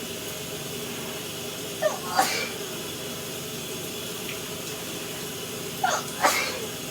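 Two sneezes about four seconds apart, each a short catch of breath followed by a sharp burst, over the steady hiss of a running shower.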